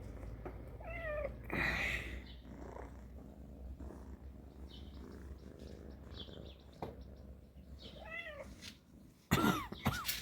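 Cat meowing, short high calls repeated several times, with the loudest near the end.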